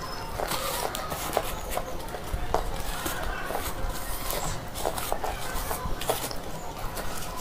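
Dry slate pieces crunching and crackling, broken by fingers in the tray and chewed, in a run of irregular crisp clicks.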